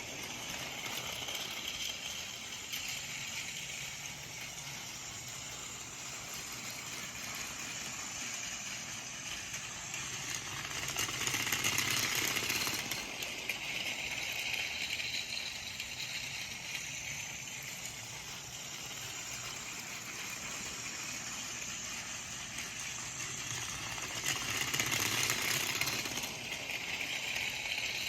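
Battery-powered Plarail Thomas toy train pulling Annie and Clarabelle around a plastic track: the small motor whirs with a steady rattle of plastic wheels on the track. It grows louder twice, about halfway through and again near the end, as the train comes close.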